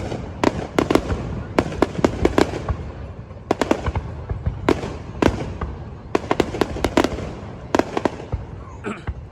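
Aerial fireworks display: shells bursting in a rapid, irregular series of sharp bangs, several a second in clusters, over a steady low rumble.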